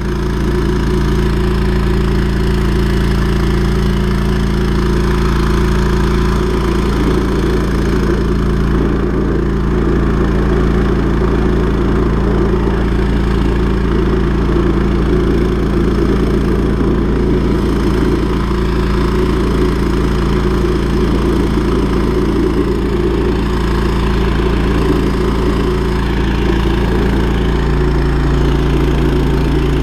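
Drain-jetting machine's engine and high-pressure pump running steadily under load, with a slight change in its note near the end.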